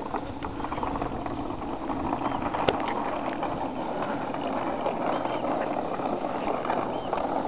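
Small wheels of a homemade wooden go-kart rolling over rough asphalt as it is towed, a steady rolling noise, with one sharp click a little under three seconds in.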